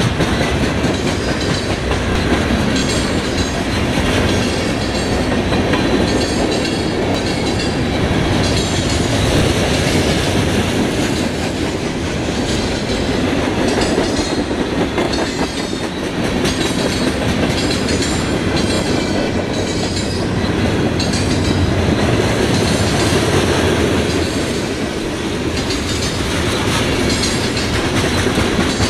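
Freight train cars rolling steadily past at close range: a continuous rumble of steel wheels on rail with repeated clickety-clack as the wheels cross rail joints.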